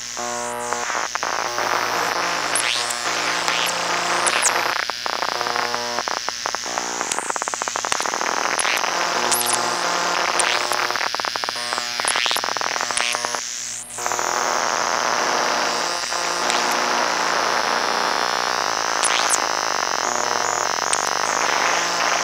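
Electromagnetic noise of four circuit-bent hard-drive motors picked up by induction coils and pushed by control voltage and hand: stuttering buzzy tones, dense clicking, and a high whine that rises and falls about every seven seconds.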